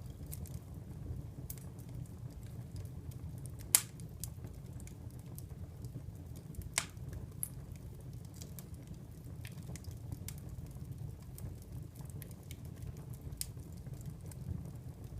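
Wood fire in a fireplace crackling, with scattered snaps over a steady low rumble and two louder pops, about four and seven seconds in.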